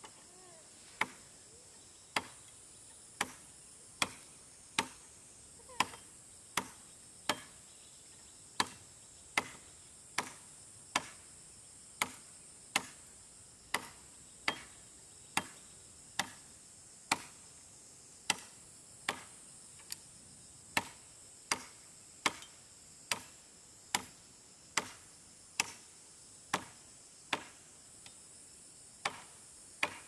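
Repeated chopping strikes, one roughly every 0.8 seconds in an even rhythm, with a brief gap near the end. A steady high chirring of insects runs underneath.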